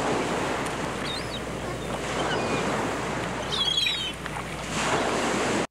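Sea waves washing onto a shore in an even, swelling rush, with a few short bird calls over it; it cuts off abruptly at the end.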